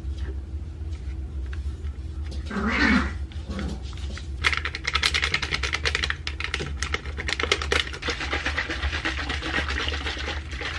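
Sachets of bowel-prep powder being emptied into a plastic bottle: a dense crinkly rustle of the packets and the pouring powder, loudest over the second half. A short breathy vocal sound comes about three seconds in.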